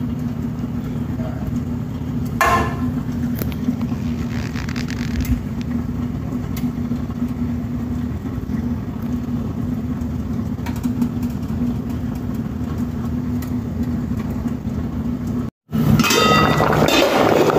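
A steady low machine hum with a few light clicks and knocks. Near the end it cuts out for a split second, and then dishes and utensils clink.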